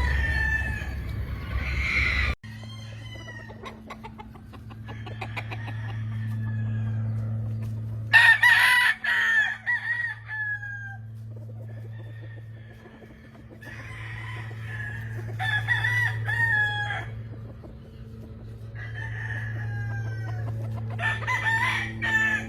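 Roosters crowing one after another every few seconds; the loudest crow comes about a third of the way in. A low steady hum runs underneath.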